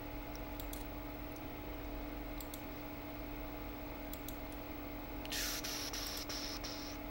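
Computer mouse clicks, single clicks scattered a second or so apart, over a steady low electrical hum. About five seconds in, a brief hissing rush of noise lasting under two seconds.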